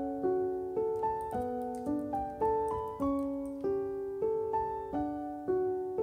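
Background music: a gentle piano melody, notes struck about two to three times a second, each fading before the next.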